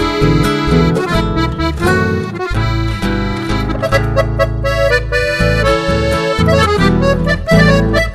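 Accordion-led instrumental music in chamamé style, a lively melody played over a bass line.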